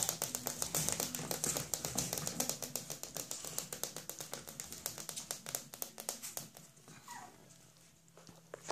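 Puppies scuffling in a wire pen: rapid light clicking and tapping that thins out and grows quieter over several seconds. A short, falling puppy whine comes about seven seconds in.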